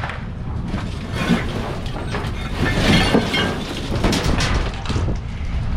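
Junk being rummaged through in a dumpster: a run of knocks and clattering debris, busiest about three seconds in, over low rumble from handling or wind on the microphone.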